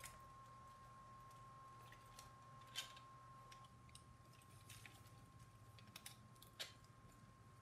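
Faint, scattered clicks and taps of hard plastic blaster parts being handled and fitted together, about half a dozen sharp clicks spread out, over a faint steady whine.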